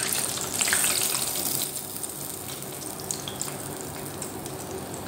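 Chicken pieces deep-frying in hot oil in a stainless steel pan: a steady sizzle with many small crackles, louder for about the first second and a half.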